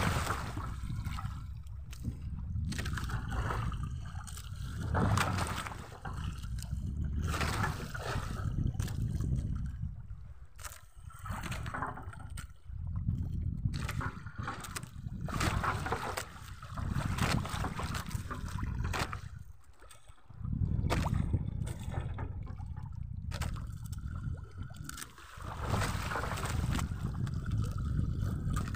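Seawater sloshing and lapping against the hull of a small outrigger fishing boat on choppy sea, with a low rumble of wind on the microphone that swells and fades, and now and then a short knock.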